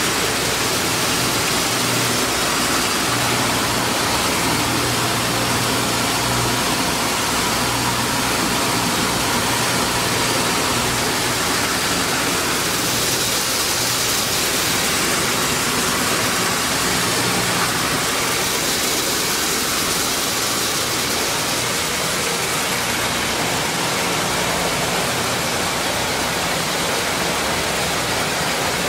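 PD2 maize grits milling machine running steadily under load: a constant loud rush of noise from the mill, with a low mechanical hum underneath.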